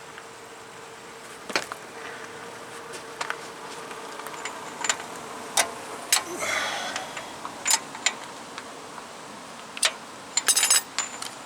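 Scattered metallic clicks and clinks of hand tools and parts being handled during a front suspension tear-down, with a quick rattle of clicks near the end. A faint steady hum fades out about halfway.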